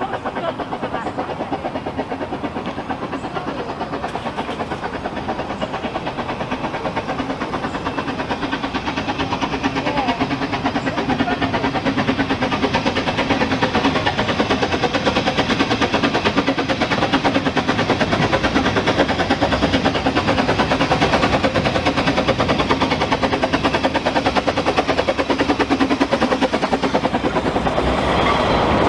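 Narrow-gauge Ffestiniog Railway train running, a steady rumble and rattle of wheels on the rails that slowly grows louder.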